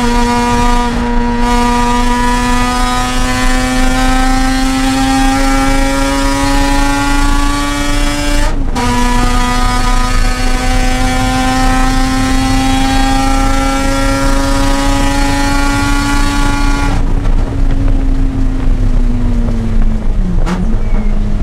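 Mazda RX-8's twin-rotor rotary engine under load, its revs climbing steadily, with one upshift about 8 seconds in and another long climb. About 17 seconds in it comes off the throttle and the revs fall, with a quick downshift just before the end.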